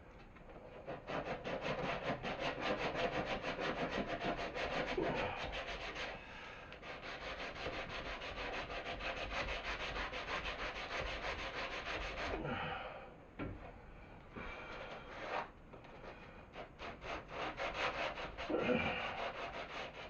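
Wood being sanded by hand, quick back-and-forth strokes at about five a second, stopping about twelve seconds in and starting again in shorter runs near the end.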